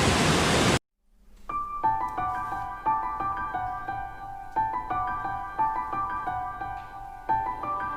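Loud rushing waterfall noise that cuts off abruptly under a second in, followed after a brief gap by soft background keyboard music, piano-like notes in a gently repeating pattern.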